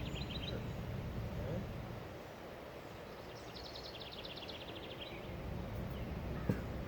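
A songbird singing a fast, even trill of repeated high notes, twice, each about a second and a half long, over steady low outdoor noise. A single sharp tap near the end.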